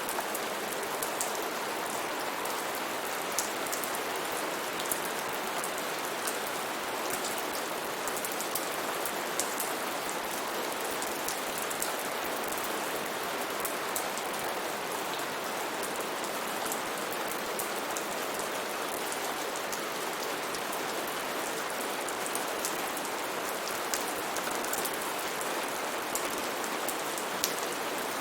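Steady rain falling, a constant hiss with many small sharp drop ticks.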